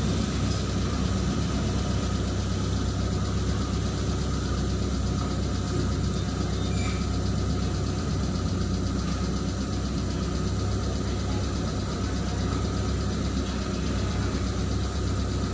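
Truck engine idling steadily, heard from inside the cab.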